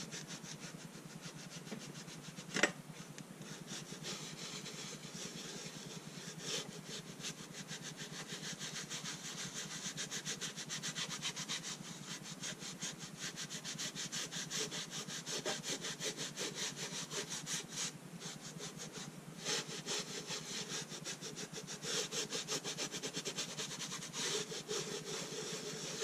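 Quick back-and-forth rubbing strokes by hand on a rusty tin box lid, with one sharp knock about two and a half seconds in.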